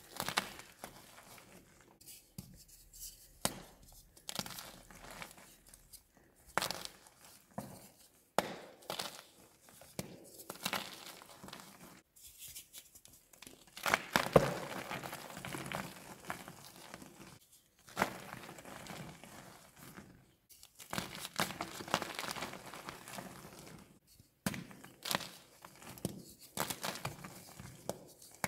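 Blocks of gym chalk snapped and crushed between bare hands: sharp cracks as pieces break apart, with stretches of soft, powdery crunching as crumbled chunks are squeezed, loudest about 14 seconds in.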